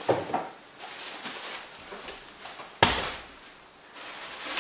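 Groceries and supplies being handled and set down: rustling, with one sharp knock a little under three seconds in.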